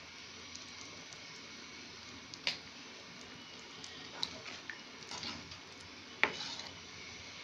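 A spoon stirring a bubbling potato-and-buttermilk mixture in a frying pan, knocking sharply against the pan three times, loudest near the end, over a steady low hiss of the simmering liquid.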